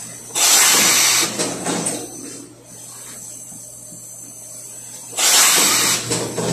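Steam garment press blowing steam into a cloak laid over its buck: two loud bursts of hissing steam, each about a second long, some five seconds apart, over a steady low hum.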